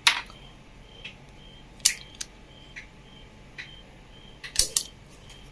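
A few sharp clicks and small knocks of table-fan parts being handled as the broken bush is taken out, one about two seconds in and a close pair near the end.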